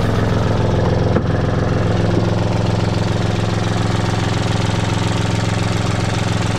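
Small inboard marine diesel engine running steadily, heard up close in its open engine compartment.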